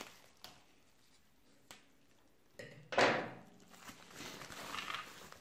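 Plastic postal mailer bag being cut open and handled: a couple of sharp clicks, then a loud crinkling rustle about three seconds in, and more crinkling of the plastic as the bag is pulled open near the end.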